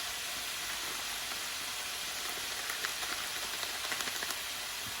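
Chicken pieces frying in coconut oil in a pan, a steady sizzle with a few faint crackles in the second half.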